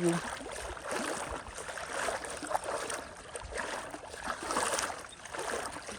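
Running water, an uneven trickling and rushing that swells and fades.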